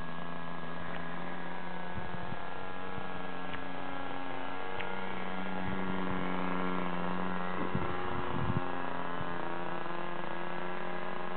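Two-stroke OS 60 plain-bearing glow engine of a model aircraft droning steadily in flight overhead, its pitch wavering slightly as the plane passes. A few brief low rumbles come through on the microphone about two seconds in and again past the middle.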